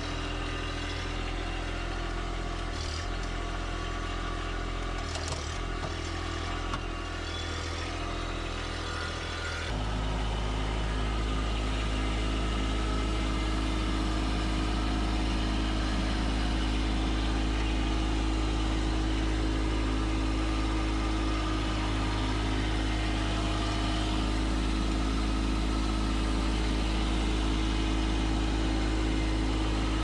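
A machine engine running steadily, with a few knocks in the first seconds; about ten seconds in it steps up to a louder, heavier steady drone and holds there.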